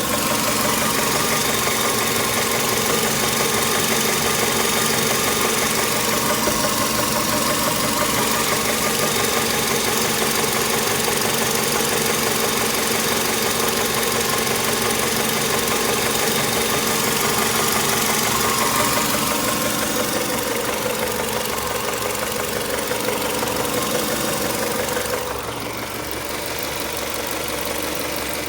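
Engine running steadily with a knocking noise in it, a knock whose source the owner cannot pin down. Near the end it becomes a little quieter.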